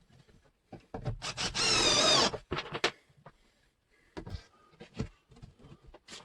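Pieces of thin pre-cut wood being handled and worked: scattered knocks and scraping, with a loud, short whine about a second and a half in that wavers in pitch.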